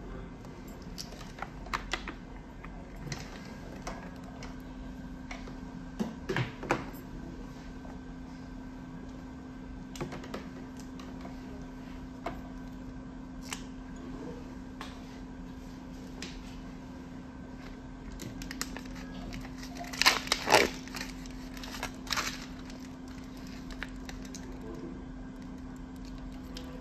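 Scattered clicks and taps of plastic tubing and connectors being handled and fitted, with a louder cluster of clicks about twenty seconds in. Underneath runs a steady hum from the Fresenius 5008S dialysis machine running its T1 self-test.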